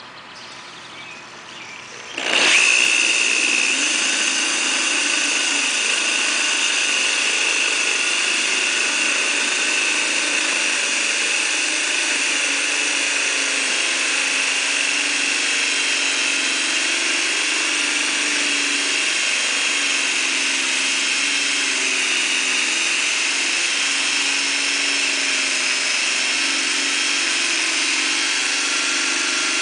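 Corded electric drill starting up about two seconds in and then running steadily under load, turning a water-fed core bit that cuts a hole through a concrete paver.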